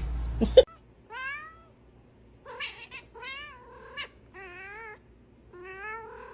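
A domestic cat meowing repeatedly: about five drawn-out calls, several with a wavering, bending pitch, after a couple of sharp clicks about half a second in.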